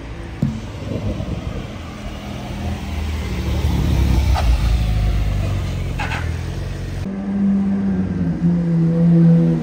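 Porsche 911 convertible's flat-six engine pulling past at low speed, its rumble building. About seven seconds in, it gives way to a Ferrari 812 GTS V12 rolling at low revs with a steady tone.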